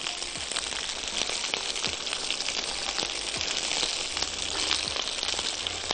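Pot of chicken and vegetable broth with egg noodles boiling on the stove: a steady hiss of bubbling with many faint ticks.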